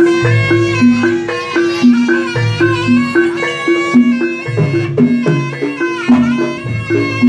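Live jaranan gamelan music: a shrill reed shawm (slompret) carries the melody over kendang drum strokes and gong-chimes that alternate between two pitches in a steady repeating pattern.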